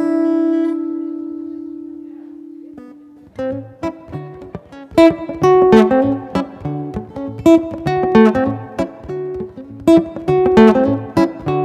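Acoustic guitar: a chord rings out and slowly fades for about three seconds. A moment later the playing resumes in a steady rhythmic strummed pattern with low bass notes.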